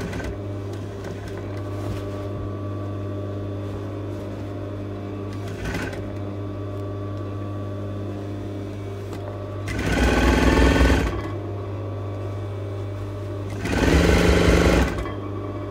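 Industrial sewing machine hemming a lining: a steady low motor hum, with two short runs of stitching, each about a second long, about ten and fourteen seconds in.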